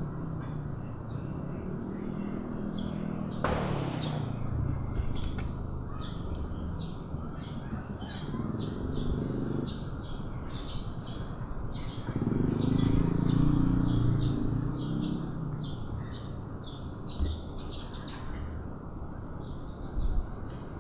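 Small birds chirping in quick, repeated notes throughout. Low drawn-out rumbles come and go, loudest about twelve to fifteen seconds in, typical of kittens growling over their food as they eat.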